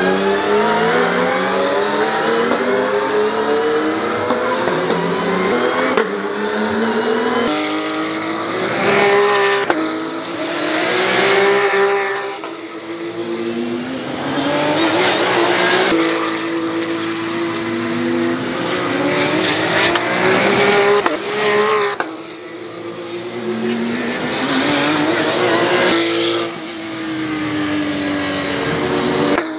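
Porsche 911 GT3 Cup race cars' flat-six engines at full racing revs. The pitch climbs through each gear and drops at the shifts, and falls away as the cars pass.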